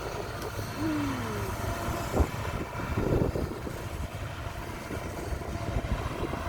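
Diesel engine of heavy earthmoving machinery running steadily, with a sharp knock a little over two seconds in.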